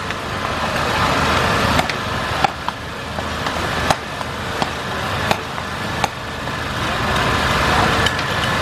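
Metal ladle and spatula clanking and scraping against a large wok as a big batch of flat rice noodles is tossed, with sharp clanks about once a second over a steady rushing noise.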